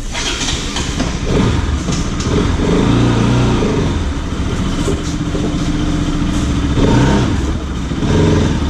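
Motorcycle engine running and revving, the Pulsar RS200's single-cylinder engine, rising in pitch several times as the throttle is opened.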